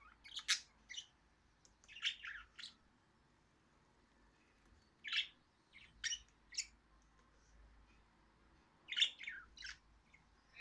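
Budgerigars chirping and squawking in short, high calls that come in small clusters every few seconds, with quiet gaps between.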